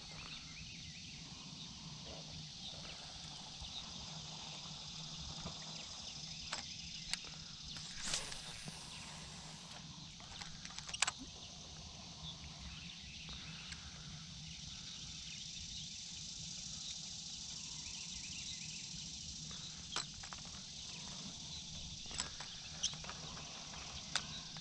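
Outdoor ambience on calm water: a steady high insect buzz over a low hum, with a few sharp clicks scattered through.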